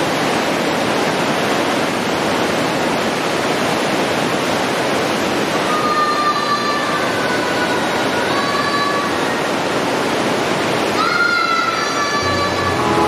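Loud, steady rush of a mountain stream cascading through a narrow rock gorge. From about halfway through, a few short, high, gliding pitched calls sound over the water.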